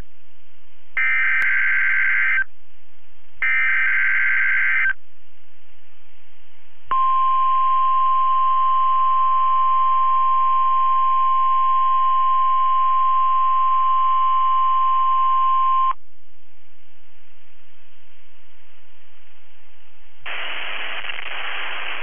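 NOAA Weather Radio EAS alert from station KHB32. It opens with two harsh, warbling digital SAME header bursts of about a second and a half each. After a short gap comes the steady 1050 Hz weather radio alert tone for about nine seconds, which cuts off abruptly. Radio hiss follows, and a voice starts near the end.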